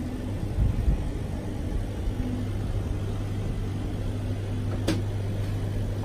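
Phone-screen vacuum laminating machine running with a steady low hum while it draws vacuum on the pressing chamber, with a single sharp click about five seconds in.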